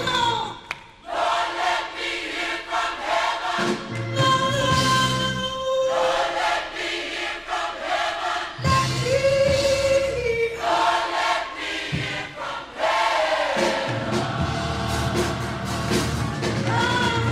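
Gospel mass choir singing long held notes, with instrumental backing.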